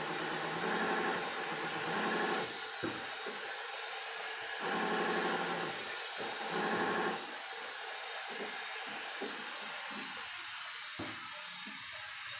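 Servo motor of a knitwear linking machine running in three pedal-controlled spurts, a steady even hum each time, then stopping. A steady hiss remains after it stops.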